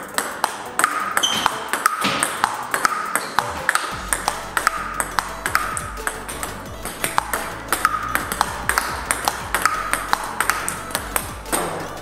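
Table tennis ball in a steady blocking rally, clicking off the paddles and pinging on the table about two to three times a second; one player blocks on the reverse side of a penhold bat with short-pips rubber. Background music comes in about four seconds in.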